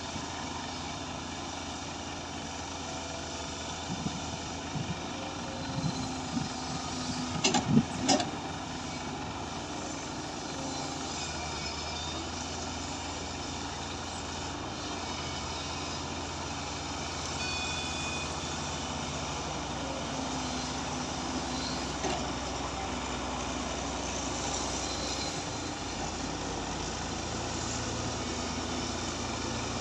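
Heavy equipment's diesel engine running steadily, with a cluster of sharp metallic knocks about four to eight seconds in, the loudest near eight seconds.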